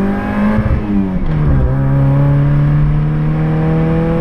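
Carbureted Ford Escort engine, fitted with a higher-lift Pointer GTI camshaft, accelerating hard, heard from inside the cabin: the revs climb, drop sharply at a gear change about a second in, then climb steadily again in the next gear.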